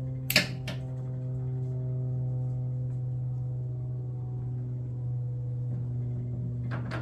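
A sharp clack about half a second in, with a fainter click just after and a couple more near the end, as the weather-stripped lid of an aluminum storage box is worked shut. Under it runs a steady low hum with several steady higher tones.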